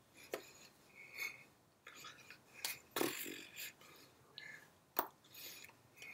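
Hands clapping and tapping against each other and the chest while signing in sign language, a handful of sharp claps within a few seconds, mixed with soft breath and mouth noises.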